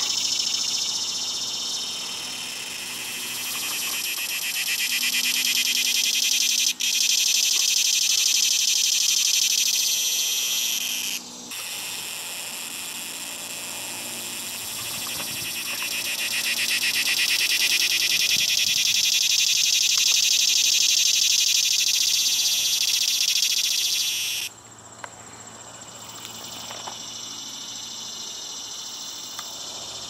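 Cicada singing: a loud, shrill, pulsing buzz that rises and falls in loudness. It breaks off for a moment a little over a third of the way through, swells again, then stops abruptly near the end.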